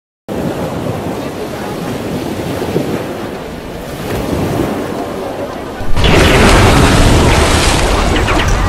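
Sea-water sound effect: a rumbling wash of surf and water begins a moment in. About six seconds in it jumps to a much louder crash of surging, splashing water as a sea monster breaks the surface.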